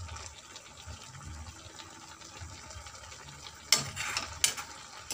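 Steel ladle stirring green vegetables in a steel karahi, with a faint frying sizzle. Near the end the ladle knocks sharply on the pan twice, under a second apart.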